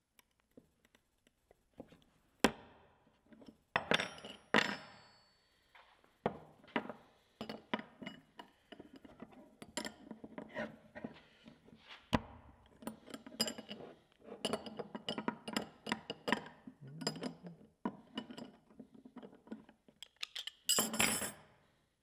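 Two steel combination wrenches clinking and rattling against each other and against a Master Lock padlock's shackle as they are levered apart to pry the lock open, in many separate sharp clicks and clacks. Near the end the wrenches clatter down onto the wooden bench.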